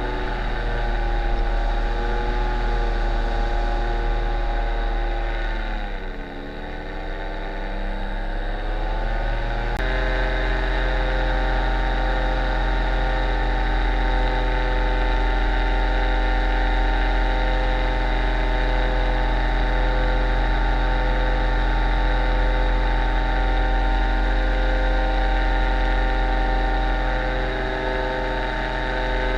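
Paramotor engine and propeller running in flight. The revs sag and dip around six seconds in, pick up again, then jump up about ten seconds in and hold steady.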